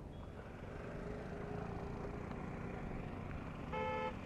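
Steady low rumble of road vehicles, with a short vehicle horn honk near the end.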